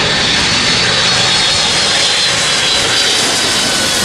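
Jet engines of a Boeing 757 airliner on approach with gear down, passing low overhead: a loud, steady rushing roar with a faint high whine.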